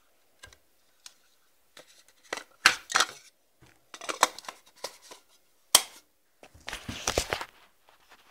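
A camera lens and its plastic wrapping and pouch being handled and unpacked by hand: irregular sharp clicks and knocks, the loudest about 2.7 s and 5.75 s in, and between them stretches of crinkling and rustling, the longest about seven seconds in.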